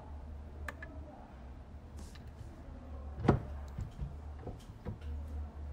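A few small clicks and taps of a blade and tools handling an iPhone camera assembly, the sharpest about three seconds in, over a low steady hum.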